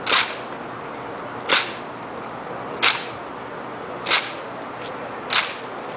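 Sharp cracks made in unison by an armed drill team's marching cadets, five of them at an even beat about every second and a third.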